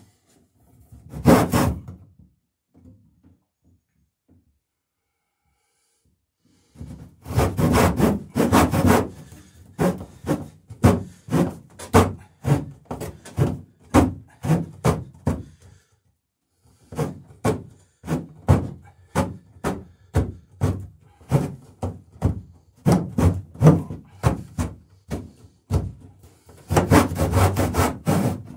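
Handsaw cutting through two wooden cleats at once, its blade held level across both, in steady back-and-forth strokes about two a second. The sawing stops for about four seconds after a first short burst, and again briefly past the middle.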